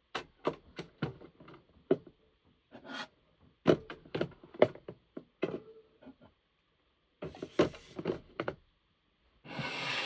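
Drinks and snacks being handled and set down while restocking a mini fridge: a string of sharp taps and knocks, some in quick clusters. Near the end comes a noisy burst lasting about two seconds.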